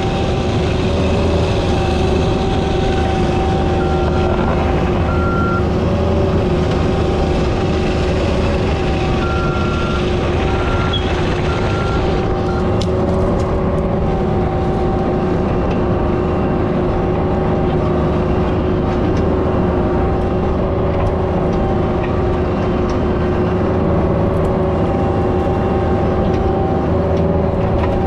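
Cat 304 mini excavator's diesel engine running steadily at working speed, its tone shifting slightly every few seconds. Short high beeps sound twice, about 4 and 10 seconds in.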